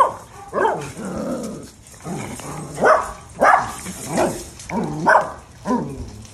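Miniature Schnauzer puppies barking and yapping in play: a string of about eight short, high barks, with one longer call about a second in.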